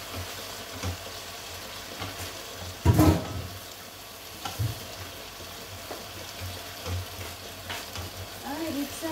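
Chicken strips sizzling in a hot frying pan while being stirred and turned with wooden spatulas, with frequent soft knocks of the spatulas against the pan and one louder clatter about three seconds in.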